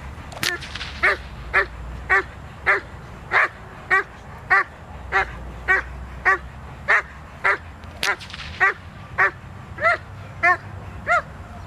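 Doberman pinscher barking steadily at a protection-training helper, a regular run of about one bark every 0.6 seconds. Two sharp cracks cut in, once about half a second in and again around eight seconds in.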